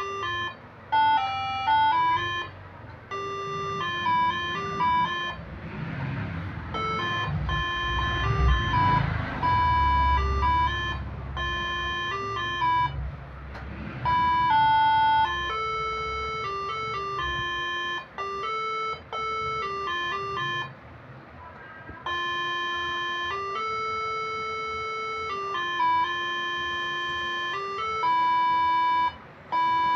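Basuri-style musical air horn driven by a Moreno MS7 melody module, playing a tune in short stepped notes, two or three pitches at a time, with brief pauses between phrases.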